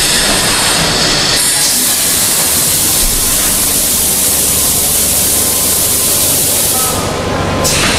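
MX700-1200 vacuum forming machine running, with a steady low mechanical noise and a loud hiss that starts sharply about one and a half seconds in. The hiss drops out briefly near the end, then returns.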